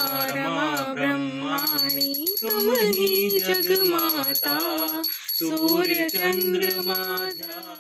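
A devotional aarti hymn being sung, one voice carrying a slow, gliding melody with short breaks between lines, fading out near the end.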